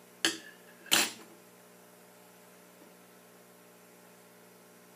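Two sharp knocks of glass lab ware being handled on a tabletop, about two-thirds of a second apart. The first has a brief glassy ring. A steady electrical hum runs underneath.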